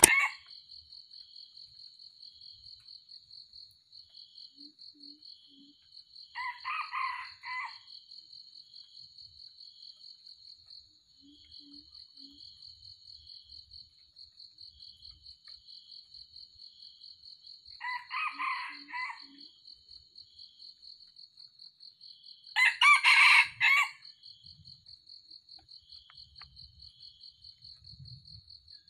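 Red junglefowl crowing: three short crows, about six, eighteen and twenty-three seconds in, the last the loudest, over a steady, rapidly pulsing high insect trill.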